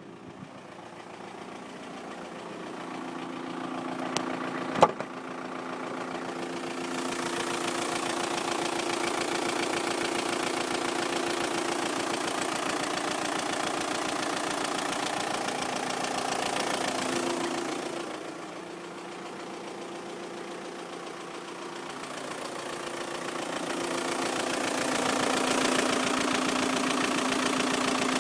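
VW Passat 3B's 1.9 TDI diesel engine (AFN) running at idle with a fast, even rattle, the knocking the owner wants explained after 340,000 km and has driven with for 40,000 km. It grows louder over the first several seconds and dips for a few seconds past the middle. There is a single sharp click about five seconds in.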